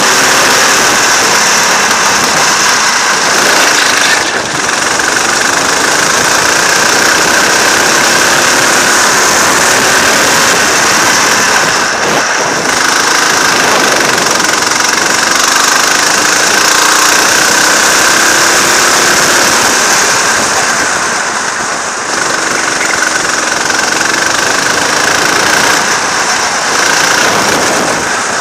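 Go-kart engine running hard, rising and falling in pitch as the throttle is opened and lifted, under a steady heavy rush of noise. The sound dips briefly three times, about 4, 12 and 22 seconds in.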